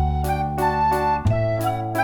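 Background music: a bouncy keyboard tune with a steady beat and a held bass line.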